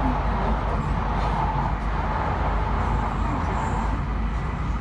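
Interior running noise of an E5 series Shinkansen heard from inside the passenger cabin: a steady, mostly low noise with no pauses or sudden events.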